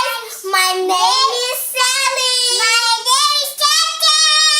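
A child singing a short tune in a high voice, holding notes and moving between pitches over several phrases.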